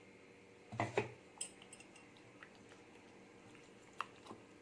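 A few faint knocks and clinks of a utensil against a glass mixing bowl as marinade paste is added to chicken pieces: one soft knock about a second in, then a few light clicks.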